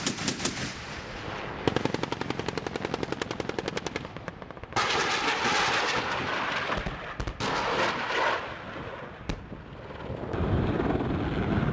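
A fast, even burst of automatic fire from an AH-1Z Viper's M197 20 mm three-barrel cannon. About five seconds in it gives way to a sudden loud rushing roar as a Hydra 70 rocket streaks down and strikes the ground, followed by a shorter second rush and a single sharp crack.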